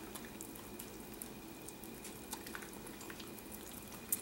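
Faint wet clicking and smacking of an Italian greyhound nibbling a piece of raw salmon held in fingers, with a sharper click about four seconds in.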